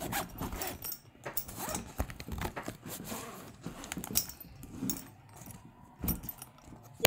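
Fabric camping-chair backpack being handled and its front pocket opened: rustling cloth with a zipper and scattered small clicks and clinks, irregular throughout.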